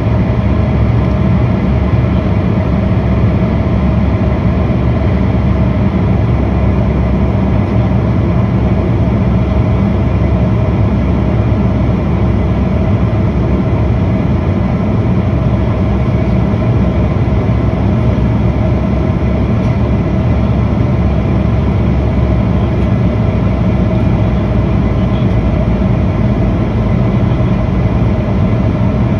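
Airliner cabin noise in flight: a steady low rumble of engines and rushing air, with a few faint held tones above it.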